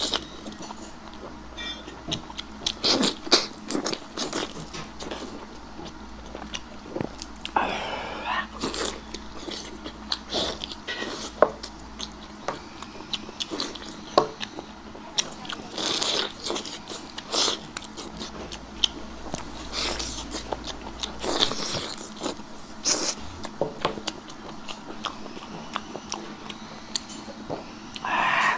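Close-miked mouth sounds of someone eating chewy offal: wet biting and chewing, with irregular sharp clicks and short slurping smacks.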